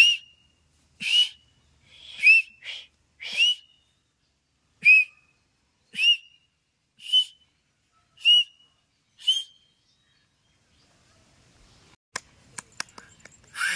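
A man whistling with his fingers at his lips: about nine short chirping whistles, roughly one a second, each bending up and then down in pitch, with breath noise. Near the end come a few light clicks and rattles.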